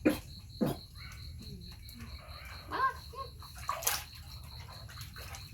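Insect chirping in a steady high-pitched rhythm of about four pulses a second, with sharp knocks about half a second apart at the start, another near four seconds, and a short squeaky call a little before.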